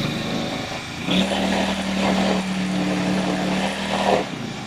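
GX35 four-stroke brush cutter engine running on test: it speeds up about a second in, holds a steady pitch for about three seconds, then drops back toward idle near the end.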